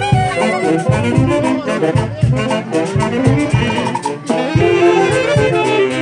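Band music led by saxophones and brass over a steady beat.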